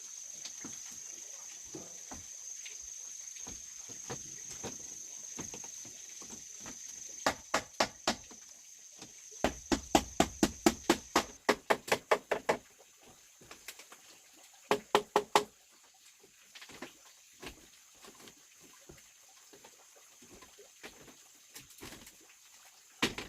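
Hammer blows on wood in three bursts: a few strikes, then a quick run of about a dozen at roughly four a second, then a few more. A steady high-pitched tone runs underneath in the first half.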